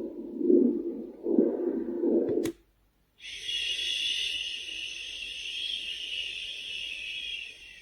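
Sound machine playing a low pulsing sound, a little more than one beat a second, which stops at a click about two and a half seconds in; after a brief silence a steady high hiss starts and fades out near the end.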